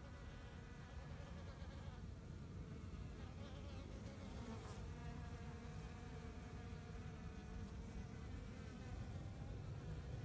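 A flying insect buzzing near the microphone: a steady hum that wavers slightly in pitch, over a low rumble.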